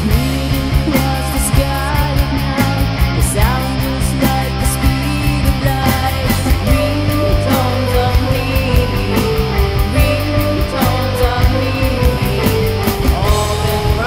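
A rock song played by a full band, with guitars, bass and a steady drum beat under a woman's sung vocal.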